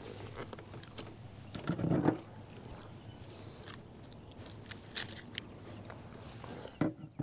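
Small clicks, scrapes and rustles of hands working a jig hook out of a caught crappie, with a louder rustle about two seconds in.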